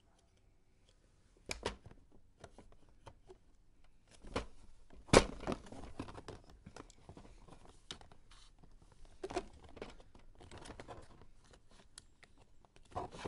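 Hands fitting small parts onto a plastic Tomica Buzz Lightyear spaceship storage case. Irregular clicks, taps and light rustling, with one sharp click about five seconds in.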